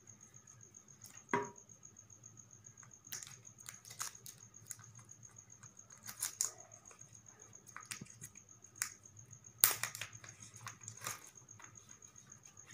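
Scattered clicks, taps and light rustles as a new smartphone is handled and freed from its packaging. The loudest click comes about ten seconds in. Underneath are a faint steady high trill and a low hum.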